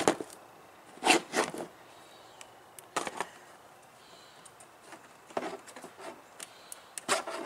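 Short plastic clicks, knocks and scrapes in a few brief clusters, loudest about a second in, as a plastic trim-removal tool pries at plastic retaining clips and the tools and parts are handled.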